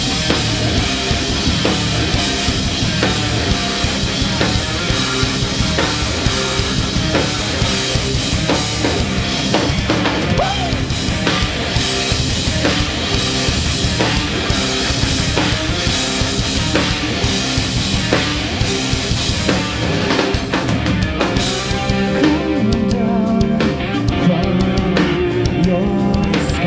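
Live rock band playing an instrumental passage with no vocals, the drum kit prominent with kick and snare hits.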